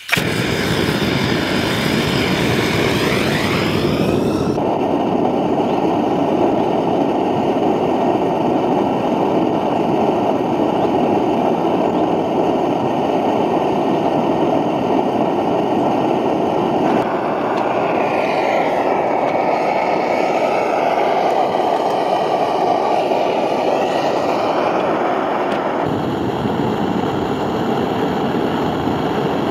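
Portable gas stove burner under a Bemco Backpacker Oven, burning at full flame with a steady, loud hiss while the oven heats up to baking temperature. The sound's character shifts slightly a few times.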